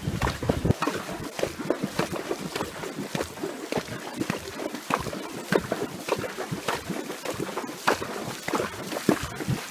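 Horse wading through a shallow creek, its hooves splashing in the water in an irregular run of splashes, two or three a second. Wind rumbles on the microphone at the very start.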